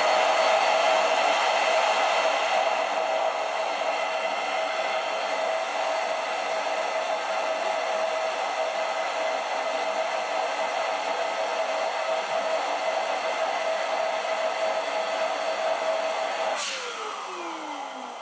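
Electric air pump running steadily with a whine, blowing air into a vinyl beach ball; about 16.5 seconds in it is switched off and the whine falls in pitch as the motor winds down.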